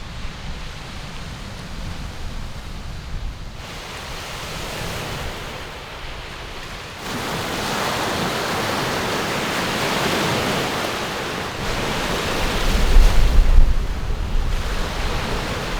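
Waves washing on the Lake Superior shore with wind, a steady rushing that grows louder about seven seconds in. Near the end a wind gust buffets the microphone with a low rumble.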